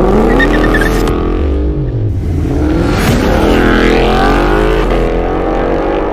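Ford Mustang engine revving and accelerating past, its exhaust note sweeping up and down in pitch several times.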